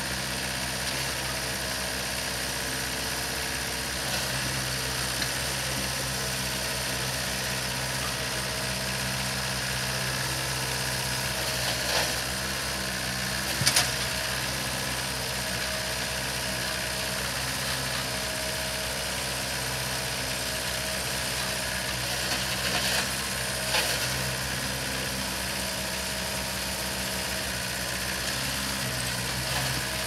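Kubota B3350 compact tractor's three-cylinder diesel engine running steadily at idle, with a few short knocks, the loudest about halfway through.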